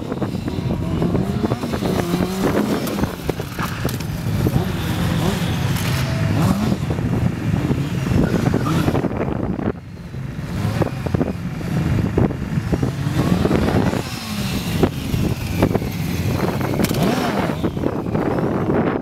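Sport motorcycle engine revving, its pitch rising and falling again and again under throttle during stunt riding such as wheelies. The sound dips briefly about halfway through.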